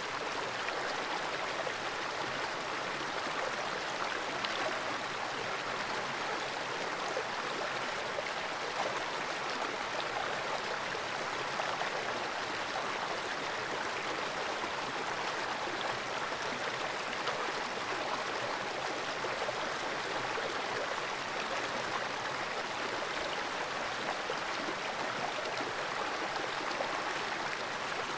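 Fast-flowing creek water rushing steadily, with no breaks or single events.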